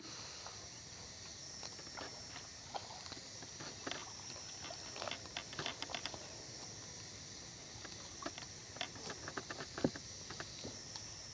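Faint steady outdoor background with scattered small clicks and ticks, bunched around five to six seconds in and again around nine to ten seconds in.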